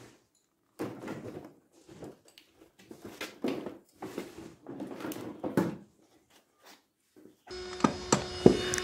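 Irregular knocks, clunks and rattles of a hand tool and metal engine parts being handled. A little before the end a steady hum sets in, with sharper clicks over it.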